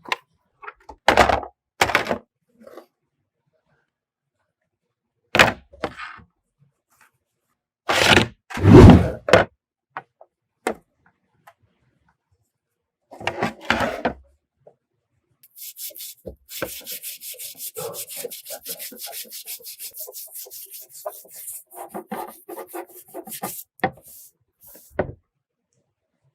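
Hand work on metal and parts: a few separate knocks and thuds as pieces are handled and set down, the heaviest about a third of the way in. Then comes a long stretch of quick, even rubbing or scraping strokes, like brushing or sanding.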